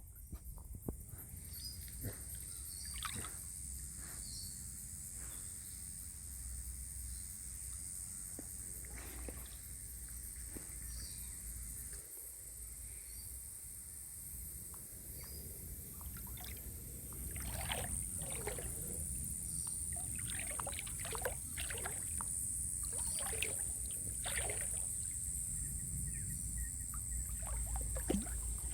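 Creek water sloshing and splashing in irregular strokes, more often in the second half, over a steady high insect drone.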